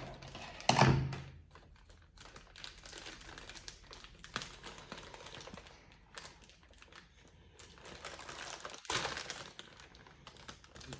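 Plastic packaging bag being handled and pulled open, crinkling with many small irregular clicks, with a louder knock about a second in and a louder crinkling stretch near the end.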